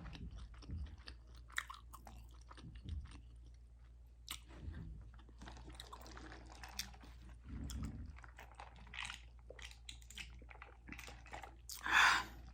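Close-up chewing of spaghetti with meat sauce: many small wet mouth clicks and smacks, with one brief louder rush of sound near the end.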